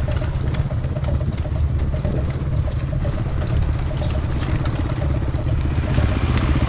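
Enduro motorcycle engine running steadily as the bike rides a rough forest trail, with a fast pulsing exhaust note and scattered clicks and clatter from the bike over the ground.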